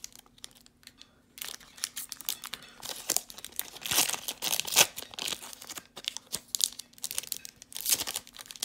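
Foil Pokémon booster pack wrapper crinkling and crackling as hands squeeze it and pull it open, loudest about four to five seconds in.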